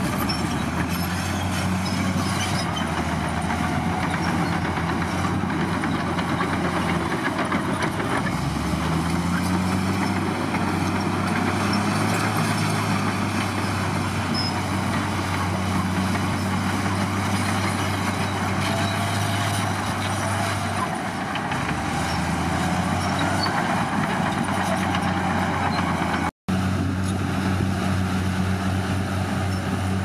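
Komatsu D53P bulldozer's diesel engine running steadily under work. Its note rises about eight seconds in and dips briefly around twenty-one seconds before picking up again.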